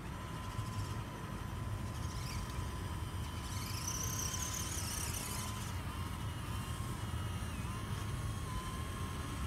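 Faint whine of small electric RC crawler motors over a steady low rumble, with a higher-pitched whine rising and falling about halfway through.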